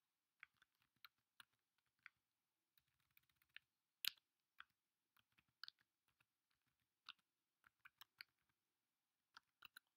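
Faint, irregularly spaced key clicks from typing on a computer keyboard.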